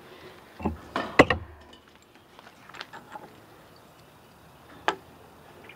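Handling noise as PVC pipe and plumbing fittings are worked together: a few scattered knocks and clinks, the loudest cluster about a second in and a single sharp one near the end.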